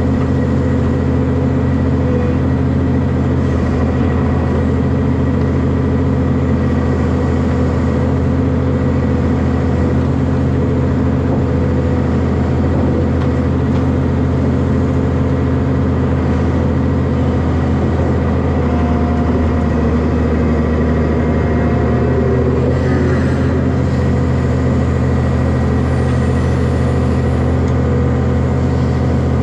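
Excavator's diesel engine and hydraulics running steadily at working speed under load, heard from on the machine, with a slight shift in its note about three-quarters of the way through.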